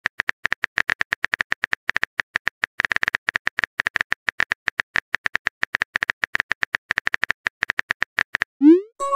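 Keyboard-typing sound effect of a texting-story app: a rapid run of small clicks, about eight a second, while a message is typed. Near the end the clicks stop and a rising swoop begins, the start of the message-sent sound.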